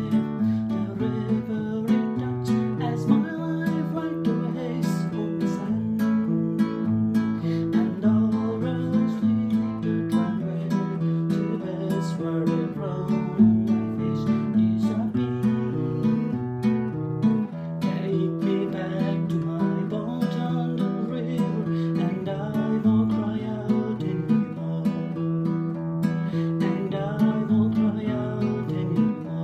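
Acoustic guitar strummed and picked, with a man's wordless vocal melody over it.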